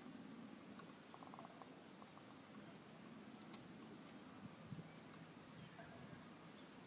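A sleeping hen snoring softly: short, faint, high-pitched squeaks with her breaths, two close together about two seconds in and more later, and a brief soft buzzing rattle about a second in.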